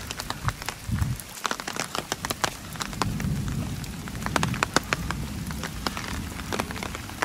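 Heavy rain falling, with many sharp raindrop taps close to the microphone over a steady hiss.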